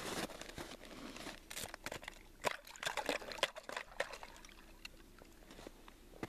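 Snow and slush crunching with trickling water and scattered sharp clicks, from hands working at an ice-fishing hole to haul up a tip-up line. The clicks come thickest in the middle, then thin out near the end.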